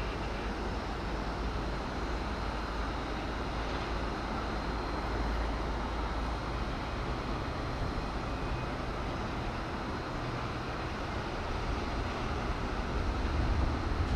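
Steady low rumbling background noise that grows a little louder near the end. A faint, thin high tone sits above it for the first few seconds.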